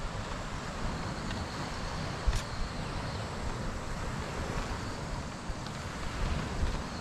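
Wind buffeting the microphone in gusty low rumbles over a steady wash of surf from the shore, with a single short tap about two seconds in.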